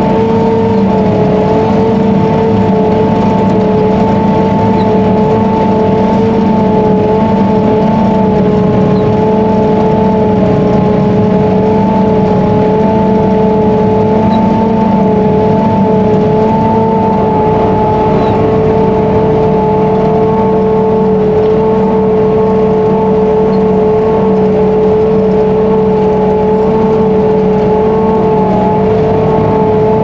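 Krone Big X self-propelled forage harvester running steadily under load, heard from inside its cab while it chops corn and blows the silage into a truck alongside. A steady whine sits over the machine's drone and does not change.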